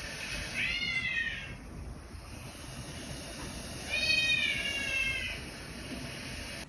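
A domestic cat meowing twice: a short high call about half a second in and a longer, louder one about four seconds in, each rising slightly and then falling in pitch.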